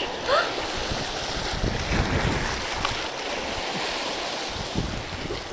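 Sea waves washing and breaking over the rocks at the water's edge, with wind buffeting the microphone.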